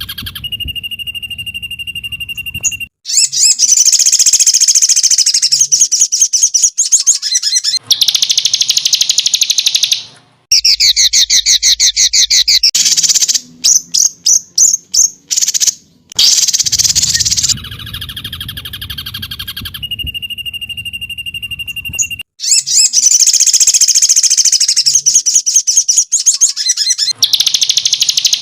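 Songbird song from a masteran training recording: loud, rapid volleys of high chirps and trills, spliced into segments that start and stop abruptly, with a steady high whistled note near the start.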